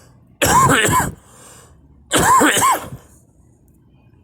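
A person coughing: two loud fits, about half a second and two seconds in, each a quick double cough with a voiced, throaty sound.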